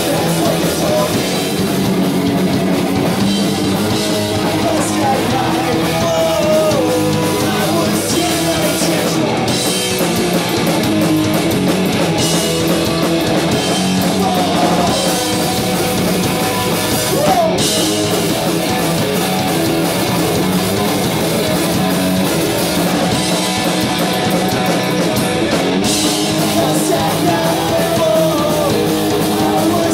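A live punk rock band playing loud and steady: electric guitar, bass guitar and drum kit.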